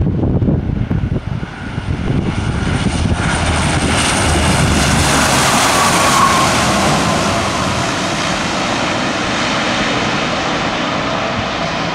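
Lockheed C-130A Hercules' four Allison T56 turboprops droning on a low landing approach. The roar swells as the aircraft passes close, is loudest about halfway through, then holds steady as it flares over the runway.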